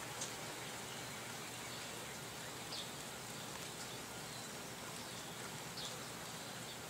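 Faint, steady outdoor background hiss, with three short high chirps a few seconds apart.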